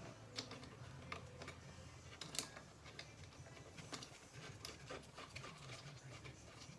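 Faint, irregular clicks and light taps of hand tools and small hardware being handled, over a low steady hum.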